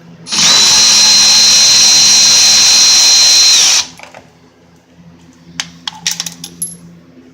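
Power drill spinning at full speed for about three and a half seconds with a steady high whine that drops as it winds down, unscrewing a bolt. A few light clicks follow.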